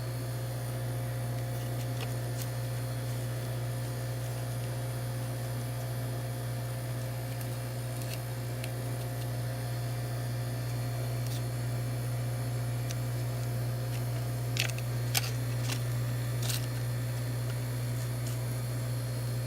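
Steady low hum, with three or four light clicks or taps close together about three-quarters of the way through.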